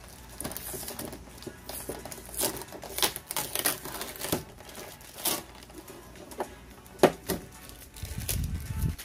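Plastic packaging crinkling and rustling in irregular bursts as a boxed collectible figure is unwrapped and handled, with one sharp crackle about seven seconds in and a low handling rumble near the end.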